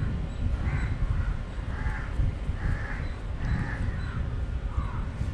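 A bird cawing repeatedly, a series of short harsh calls a little more than one a second, over a steady low rumble.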